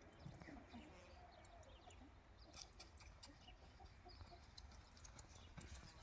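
Faint clucking of chickens, with a few light knocks in the second half.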